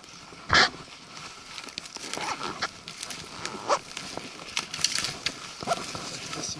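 A hiker's footsteps on the forest floor, crunching through leaf litter and sticks in an uneven run of crackles. A single sharp knock about half a second in is the loudest sound.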